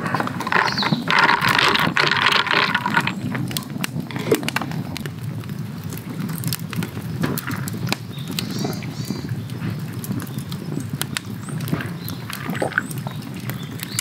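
Wood campfire crackling, with irregular sharp pops over the low rumble of the flames. A brief hiss sounds about a second in.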